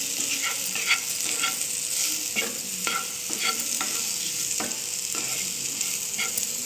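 Bitter gourd slices frying in oil in a nonstick pan, sizzling steadily, while a spatula stirs them with irregular scrapes and taps against the pan.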